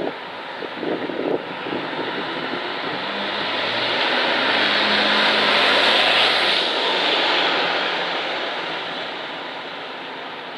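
Single-deck bus driving past close by: engine and tyre noise that grows, is loudest about six seconds in as the bus passes, and then fades as it moves away.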